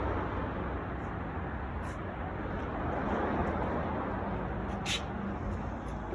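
Steady road-traffic noise that swells slightly in the middle, with one sharp click about five seconds in.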